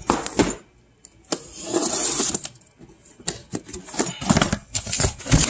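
A cardboard shipping box being handled and opened: irregular scraping and rustling of cardboard and packaging, with sharp clicks and knocks.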